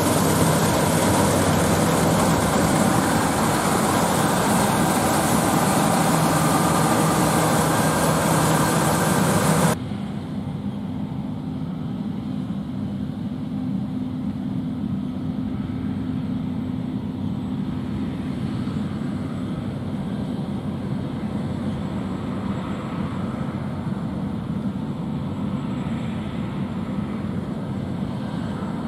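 John Deere X9 1100 combine harvester running loud and steady while cutting wheat, engine and threshing machinery together. About ten seconds in the sound switches abruptly to a quieter, steady hum of a John Deere S790i combine working in the wheat.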